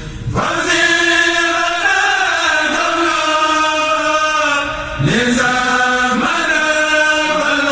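A kourel of men's voices chanting a Mouride khassida together, unaccompanied and amplified through microphones. There is a short break just before five seconds in, then the next phrase starts with a rise in pitch.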